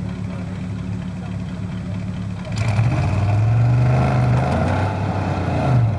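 Full-size pickup truck's engine running steadily, then revved hard about two and a half seconds in as its wheels spin in deep snow, with the hiss of snow being thrown. The revs dip briefly near the end and pick up again.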